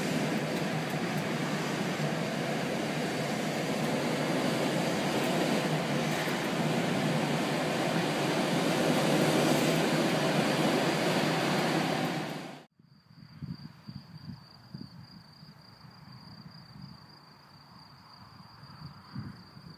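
Steady, loud rush of air streaming past a glider's canopy in flight, heard from inside the cockpit. About two-thirds of the way through it cuts off abruptly to a much quieter steady, high-pitched insect chorus over faint low wind rumble.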